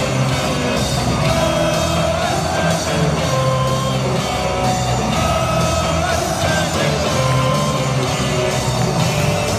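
Loud music played over a stadium sound system, with a repeating bass line and long held notes above it.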